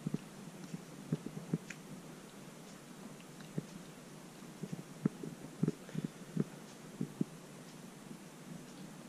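Kitten grooming itself close to the microphone: faint, irregular soft knocks and ticks of licking and nibbling at its fur.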